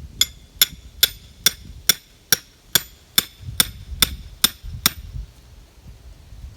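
A hammer driving a stake into the ground, twelve even blows a little over two a second, each with a short metallic ring, stopping near the end. The stake is being driven to open a hole for a corn stalk.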